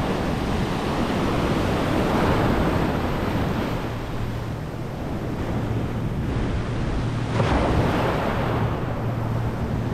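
Small ocean waves breaking and washing up the sand in shallow surf, with a wave surging in about seven and a half seconds in.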